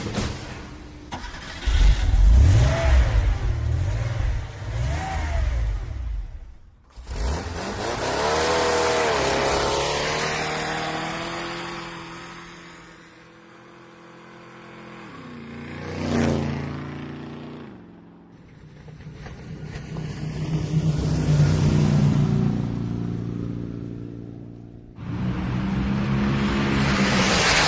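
Motor vehicle engines passing one after another, each swelling in loudness and pitch and then fading away, with revving in places.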